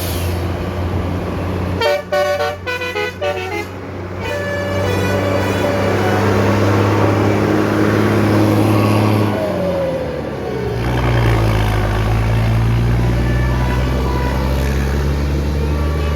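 Basuri musical air horn with roof-mounted trumpets heard from inside the bus: a quick run of short 'telolet' notes about two seconds in, followed by longer tones, over the steady drone of the bus engine. Around ten seconds in a tone falls away and the engine note shifts.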